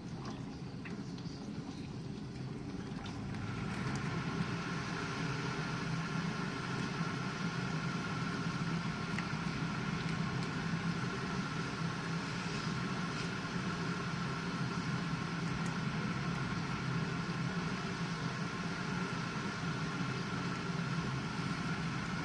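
GE dishwasher running a cycle: a steady low motor hum, joined about three and a half seconds in by a steady hiss that stays to the end.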